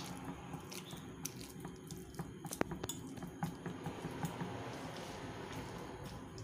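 A metal fork mashing ripe avocado in a ceramic dish: soft squishing with irregular light clicks, one sharper click about two and a half seconds in.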